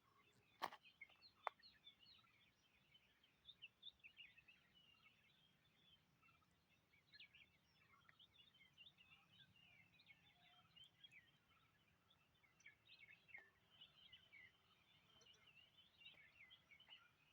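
Faint chorus of many small birds chirping and twittering in forest, with two sharp clicks in the first second and a half.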